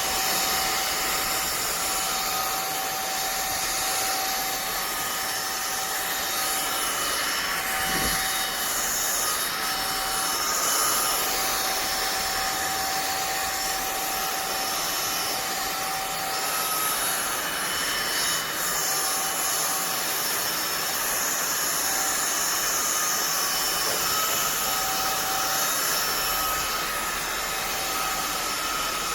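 INTETURE cordless stick vacuum cleaner running steadily: a constant rush of air with a thin steady whine over it.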